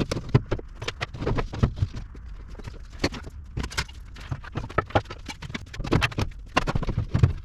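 Hard pieces knocking and clacking against each other in a quick, irregular run of sharp knocks, several a second, as things are handled and set on the newly wall-mounted storage rack.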